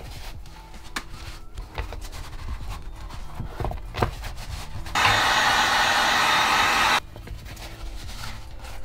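Faint rubbing and light taps of hands pressing heated EVA foam over a foil-wrapped styrofoam ball to heat-shape it. About five seconds in, a heat gun blows with a steady hiss for about two seconds, starting and stopping abruptly.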